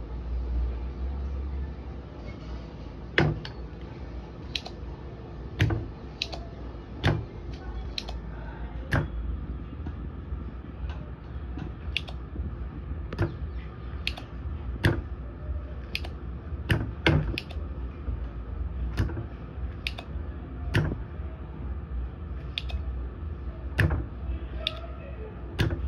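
Light, sharp metallic clicks and taps, about one a second from roughly three seconds in, as a soldering iron works at the soldered shield and pins of a charger circuit board during desoldering. A steady low hum runs underneath.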